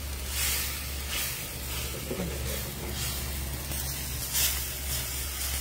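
Curry mixture sizzling in a steel frying pan over a wood fire, with repeated scrapes of a wooden spoon stirring it about once a second.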